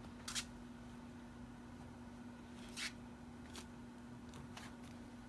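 Husky puppies tugging at a hanging mesh cloth: a few short, scratchy rustles, the loudest two near the start and just before the middle, over a faint steady hum.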